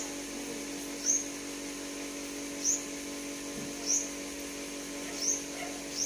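A bird giving short, thin, high-pitched chirps, one about every second and a half, over a steady low hum.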